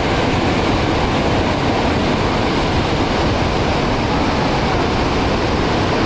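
Horseshoe Falls at Niagara: the steady, unbroken roar of a huge volume of water plunging into the gorge.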